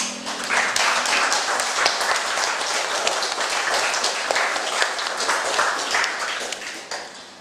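Small audience applauding, many hands clapping at once, tapering off near the end.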